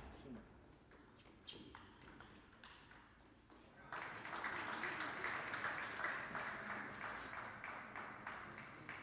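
Table tennis ball clicking off bats and table in a rally, then applause starting suddenly about four seconds in and slowly dying away near the end.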